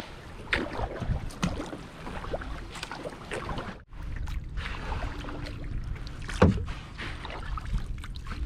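Kayak paddle strokes dipping and splashing in lake water at an uneven pace, over a low steady rumble. The sound cuts out briefly just before four seconds in. A sharper, louder stroke about six and a half seconds in is the loudest sound.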